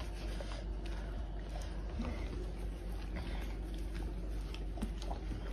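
Soft rubbing of hands working coconut oil into a dog's coat, with a few small ticks over steady low background noise.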